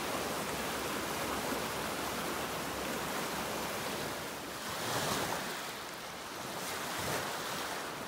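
Rushing, churning water: a steady wash of turbulent water that swells briefly about five seconds in and again near seven seconds.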